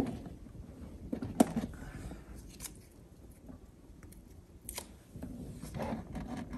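Light handling noises with a few sharp plastic clicks, from hands pressing adhesive cable-tie mounts into place inside a motorhome's toilet-cassette compartment.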